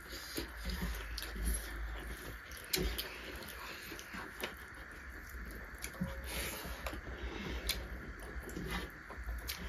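Eating by hand: fingers mixing rice on metal plates, chewing and lip smacks, heard as a scatter of small clicks and wet smacks over a faint low hum.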